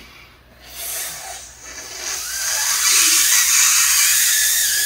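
A man blowing hard through a small hole in an ostrich egg to force the yolk and white out of a hole at the other end, a rushing hiss of breath and air. It comes in faintly, grows about two seconds in and then holds steady.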